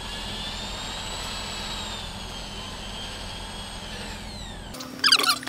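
Electric drill running steadily, its motor whine drifting slightly in pitch, as a bolt hole in a skateboard deck is reamed wider so the bolt will slip through. It stops abruptly near the end, followed by a couple of short, loud, high squeaks.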